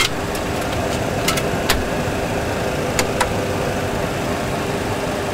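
Steady engine and airflow noise in a Boeing 737 full flight simulator cockpit, with a few sharp clicks of cockpit switches and selectors: a quick cluster about a second and a half in and two more around three seconds in.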